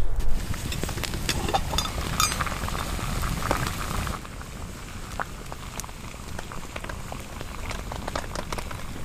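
Wood campfire crackling, with many sharp irregular pops over a steady hiss; a little quieter from about four seconds in.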